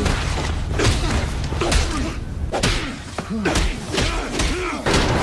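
Layered film soundtrack of a fight: repeated thuds and slams of blows and bodies, with short vocal sounds and a constant low rumble underneath.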